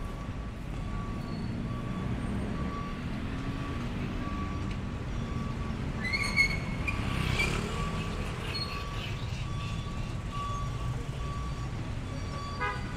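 Street traffic rumbling steadily, with a high electronic beep repeating evenly about one and a half times a second. A short high squeal rises and cuts out about six seconds in.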